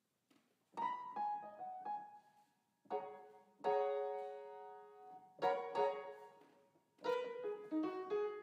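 Solo piano music played slowly: chords struck and left to ring and fade, with a few single notes between them.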